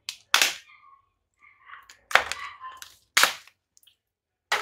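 Several sharp cracks of garden shears cutting through a brittle, badly deteriorated plant pot.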